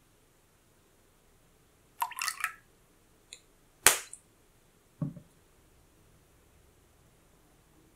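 Small, sharp kitchen utensil sounds around an enamel saucepan as lemon juice is added and a silicone spatula works in the pan: a quick cluster of light clicks about two seconds in, a single sharp click just before four seconds, and a duller knock about a second later.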